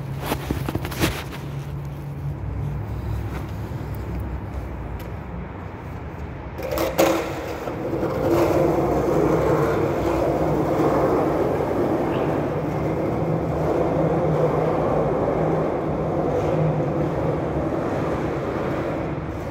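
A steady mechanical drone, getting louder about eight seconds in and then holding; a sharp knock just before the rise and a few clatters at the very start.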